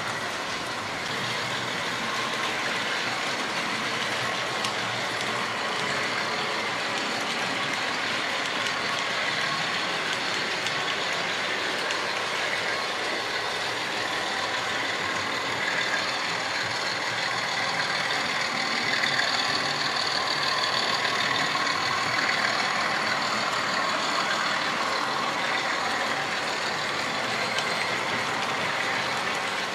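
Several model trains running at once on a model railway layout: a steady whirr of small electric motors and metal wheels on the rails, with a faint whine, a little louder a little past the middle.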